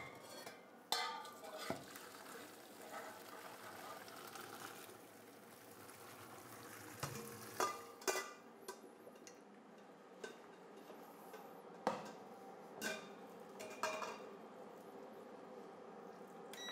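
Stainless steel pot and colander knocking and clanking as fresh tagliatelle is drained at a kitchen sink. The sharp metal knocks come at irregular intervals over a steady hiss.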